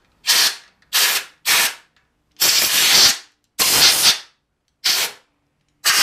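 Short blasts of compressed air from a long-probe air blow gun at 100 psi, about seven hissing bursts of under a second each with gaps between, blowing dirt and grease out from between the cooling fins of an air-cooled Suzuki GS engine.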